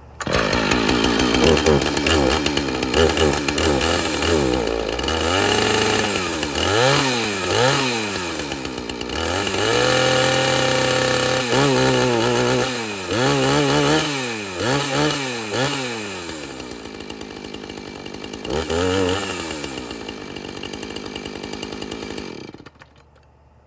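Husqvarna 450 Rancher two-stroke chainsaw, warm, firing up on the first pull and running with repeated quick throttle revs, one rev held for about a second and a half about ten seconds in, idling between. It cuts off about a second before the end.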